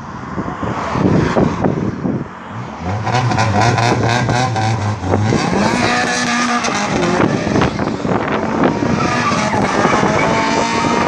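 Car engine revving hard as the car accelerates away, the engine note climbing about halfway through. Tyres squeal in the second half.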